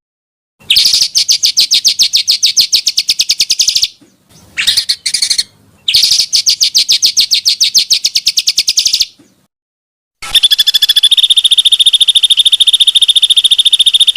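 Small songbirds singing long, rapid trilled rolls of fast repeated high notes in three runs of about three to four seconds each, with a short broken phrase in between. Each run stops dead into silence, as in an edited birdsong training track.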